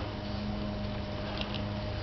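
Hoover Turbo Master upright vacuum cleaner running steadily: an even motor hum and airflow rush, with a couple of light ticks.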